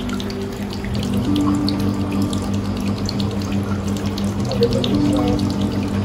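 Water raining down from the rock cave ceiling of a paludarium into the tank's water: a steady trickle with many small drops splashing. Soft background music with held notes plays under it.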